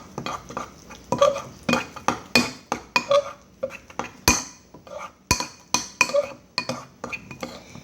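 A spoon stirring a sticky flour-and-water slime dough in a bowl, knocking against the bowl's side about two or three times a second with a short clink each time.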